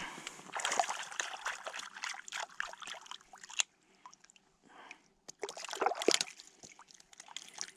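Water splashing and trickling close by in irregular bursts, with a short lull around the middle.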